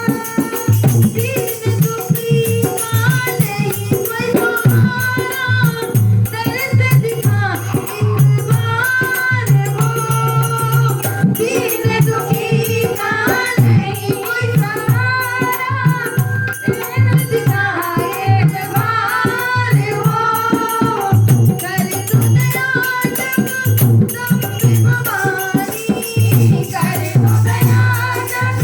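Hindi devotional bhajan: a sung melody line over a dholak hand drum played in a fast, steady rhythm, with a shaken rattle-like percussion alongside.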